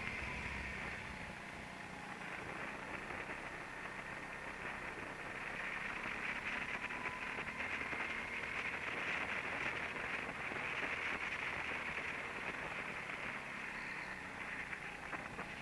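Go-kart running on track, heard from its onboard camera: a steady noisy hum of motor and tyres with a faint whine that drifts up and down in pitch, growing louder through the middle.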